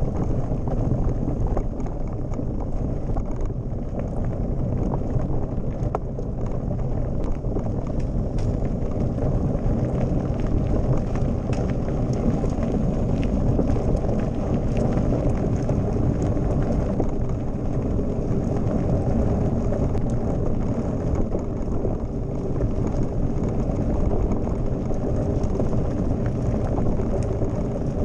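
Mountain bike riding over a loose gravel road: a steady low rumble of knobby tyres on stones mixed with wind on the microphone, with scattered faint clicks of gravel and bike rattle.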